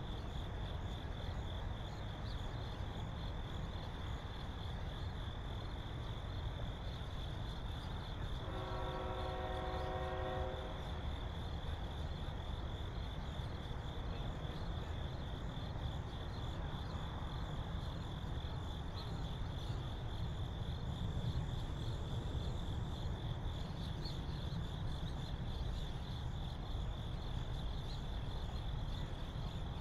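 A steady, pulsing high insect chorus over a low continuous rumble from a passing freight train. About eight seconds in, a horn chord sounds for about two seconds.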